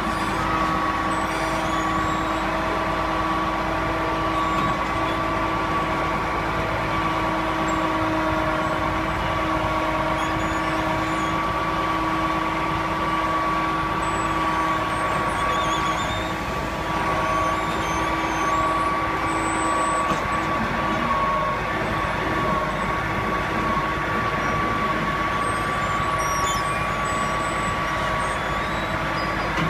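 Roadtec RX-45 cold planer's diesel engine running steadily as the tracked machine crawls under its own power up the ramps and onto a lowboy trailer, with a steady high whine over the engine noise.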